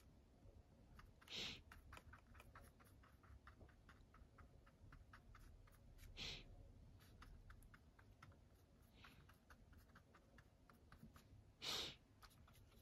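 Faint scratching and ticking of a paintbrush dabbing paint onto a cardboard box, with three short, louder soft noises about a second in, near the middle and near the end.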